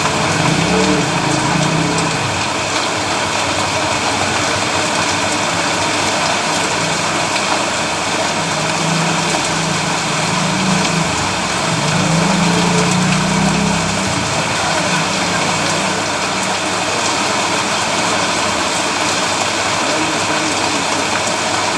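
Steady heavy rain hissing, with a vehicle engine's low hum swelling about a second in and again for several seconds in the middle.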